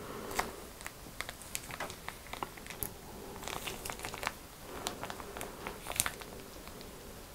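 A small plastic sauce packet squeezed in gloved hands over glazed chicken drumsticks: crinkling plastic and sauce squirting out, heard as a string of many short, irregular crackles and clicks.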